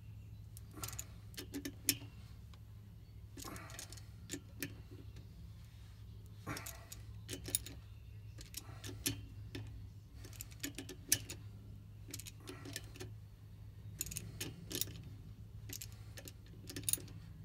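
A 3/8-inch socket ratchet clicking in short irregular runs, with pauses between them, as it tightens the bolts of a fluid flywheel flange, over a low steady hum.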